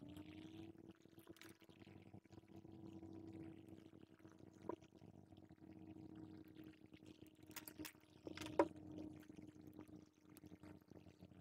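A small electric motor spins up, its hum rising in pitch and settling within the first second, then runs steadily and faintly with a light airy hiss. A few small clicks and taps come over it, the loudest near the end.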